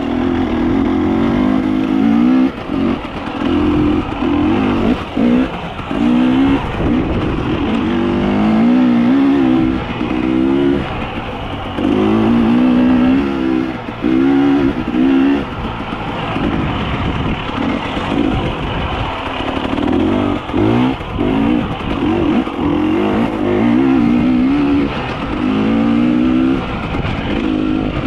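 Motor vehicle engines revving hard, their pitch repeatedly climbing and dropping back every second or so, with a steady engine drone underneath.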